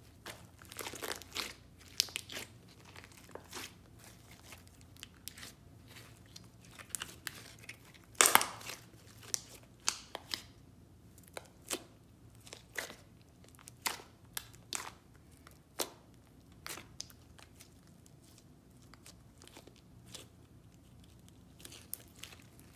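Fingers pressing, poking and folding thick metallic slime, giving an irregular run of sharp, sticky pops and crackles. The loudest pop comes a little after eight seconds, and the pops thin out over the last few seconds.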